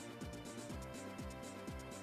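Quiet background music with a steady electronic beat: a deep kick drum about twice a second, with hi-hat ticks and held tones above.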